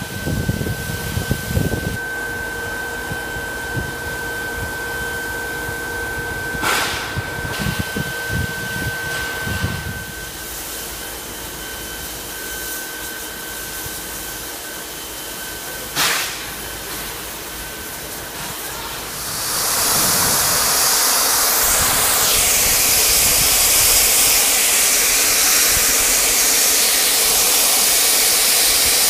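NSW 59 class steam locomotive 5917 standing with steam hissing, two sharp clicks along the way. About 19 s in, a loud, steady blast of steam starts as the cylinder cocks vent while the engine starts to pull away.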